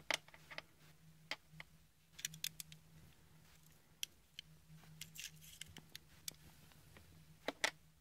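Faint light clicks and scrapes of a digital caliper being slid and handled against a small steel threaded plug, measuring its thread. The clicks are scattered, with a sharp double click near the end, over a faint low hum.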